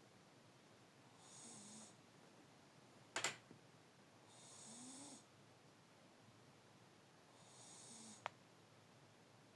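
A sleeping pet snoring quietly, three snores about three seconds apart, each under a second long. A sharp click just after three seconds in is the loudest sound, and a fainter tick comes near the end.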